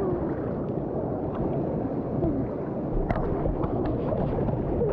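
Water churning and splashing close to the microphone, a steady wash of noise with small scattered clicks.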